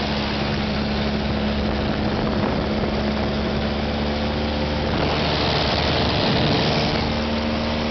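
Steady drone of a light propeller plane's engine and airflow, heard from inside the cabin in flight. About five seconds in, the hum changes for a couple of seconds and the hiss gets brighter.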